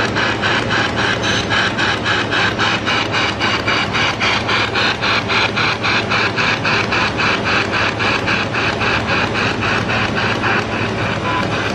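Spirit box, a radio scanning rapidly through stations: steady chopping static and fragments of broadcast, cutting in and out a few times a second.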